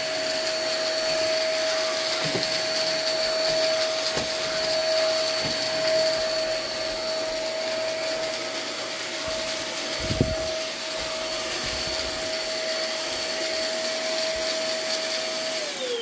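iwoly V600 corded stick vacuum's 500-watt motor running with a steady whine and rushing air while it vacuums cookie crumbs off the floor, with a few light knocks of the floor head. Near the end it is switched off and the whine falls away as the motor spins down.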